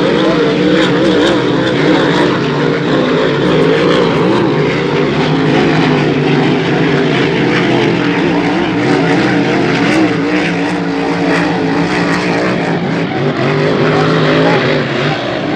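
Racing hydroplane engines running flat out, a loud, steady drone whose pitch wavers slightly.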